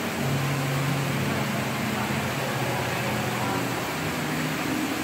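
Steady background hum and hiss, with faint low tones that come and go.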